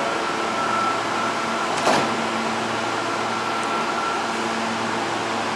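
A stopped R160 subway train humming at the platform: a steady electrical whine and ventilation noise with several held tones, one of which stops about four seconds in. One sharp knock about two seconds in.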